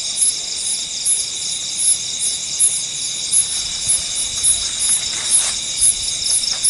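Dense chorus of night insects trilling steadily and high-pitched, with a regular pulsing beat on top. A few faint rustles come near the end.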